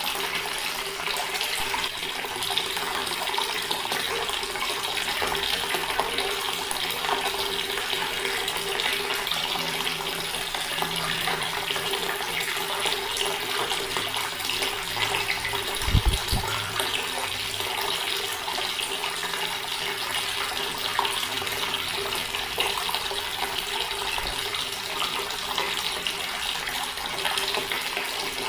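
Water running steadily from a tap and splashing, a continuous even rush with a faint steady hum beneath it. A brief low thump comes about halfway through.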